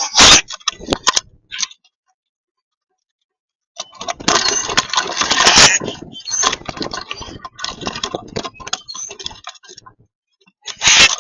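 Close, busy clattering at a bird feeder: birds landing, scrabbling and pecking, with many irregular knocks, taps and scrapes in dense bursts. A break of about two seconds comes near the start.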